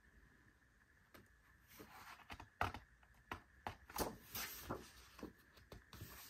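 Paper pages of a thick photobook being handled and turned: soft rustles and light taps, scattered through the middle and latter part.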